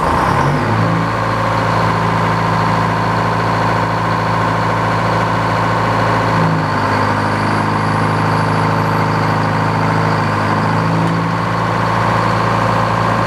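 Sawmill's engine running steadily just after being started, settling into an even idle within the first second.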